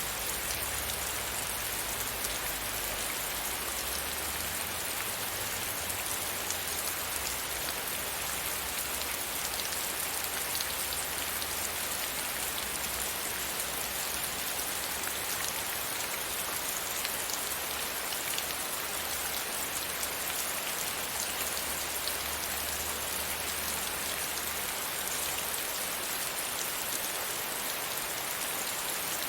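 Steady rain beating against a window pane, a dense even patter with single drops ticking through it.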